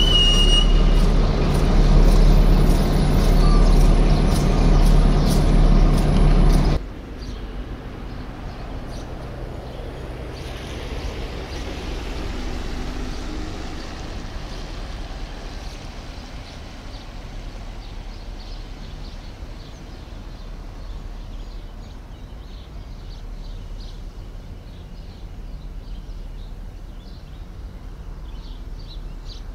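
A train running close by, loud, with a steady engine drone and some clanking. About seven seconds in it cuts off abruptly to a much quieter low rumble.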